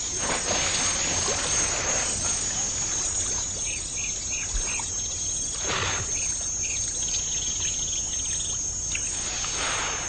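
Hippopotamuses diving, with water splashing in several rushes: at the start, about six seconds in and near the end. Behind it are a quick run of four short bird chirps about four seconds in and a steady high insect trill.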